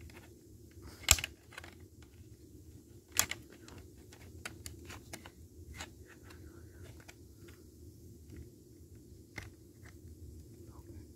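Scattered plastic clicks and taps from handling an exit sign's plastic housing and parts, with two sharper clicks about a second and three seconds in.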